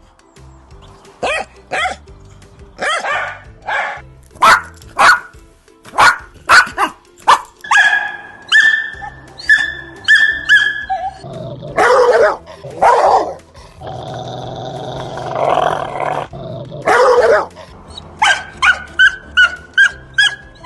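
Dogs barking in short, loud, separate barks, then a run of higher, sharper yaps from a smaller dog, with a drawn-out vocalisation of about two seconds in the middle. Near the end the quick high yaps come about three a second.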